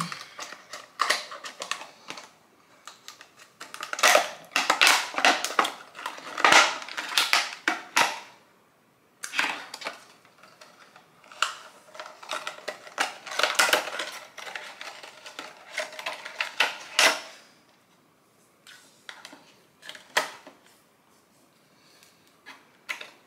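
Cardboard box and plastic sleeve of a makeup powder brush being pulled, crinkled and torn open by hand, in irregular spurts of crackling and rustling with short pauses.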